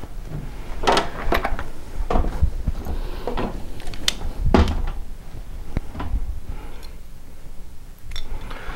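Scattered knocks, clunks and light rattles of a ladder being shifted into place and curtain brackets being picked up. The loudest knock comes about four and a half seconds in.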